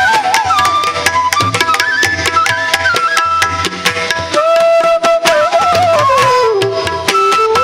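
Instrumental music in an Indian classical style: a melody of held notes with slides and ornaments over rapid hand-drum strokes.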